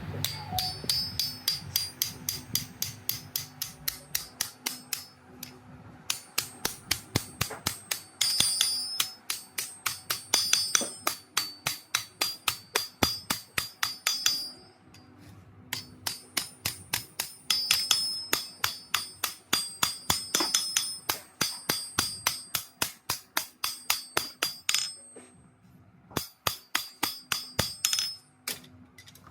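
Hand hammer forging steel on an anvil: rapid, even blows about four a second, each with a bright metallic ring, in runs broken by short pauses.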